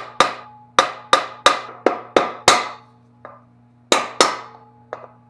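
Rubber mallet tapping the bearing at the centre of a C5 Corvette torque tube's aluminium bell-end housing, driving it home so the snap ring can go in. About eight quick sharp strikes in the first two and a half seconds, each with a short metallic ring, then a pause and two or three more near the end. A low steady hum runs underneath.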